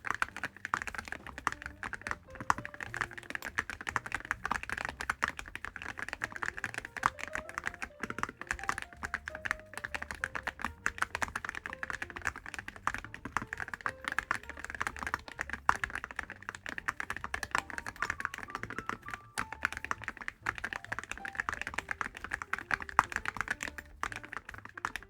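Continuous typing on a mechanical keyboard fitted with full-metal keycaps, giving a dense stream of keystroke clicks with a few brief pauses.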